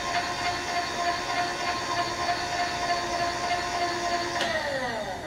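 An electric motor running with a steady whine, switched off about four and a half seconds in and winding down with falling pitch.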